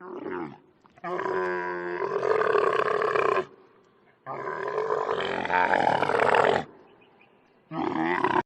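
An animal calling with rough, drawn-out calls: a short call at the start, two long calls of two to three seconds each, and another short call near the end.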